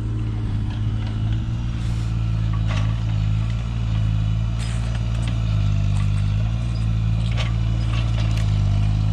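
Mini excavator's engine running steadily under load while it grapples and piles logs, its note stepping up slightly a little past halfway, with a few faint knocks.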